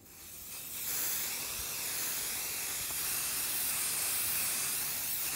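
Aerosol spray paint can spraying: one long, steady hiss that builds over the first second and then holds.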